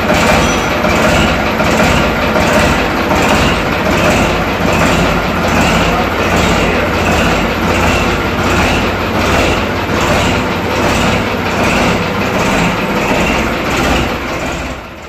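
Ford 3600 tractor's three-cylinder diesel engine running loudly, with an even, regular pulse.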